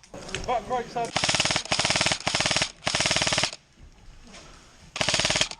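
Airsoft gun firing long full-auto bursts, a rapid even rattle of shots. Three bursts run together over a couple of seconds, and after a pause another burst starts near the end.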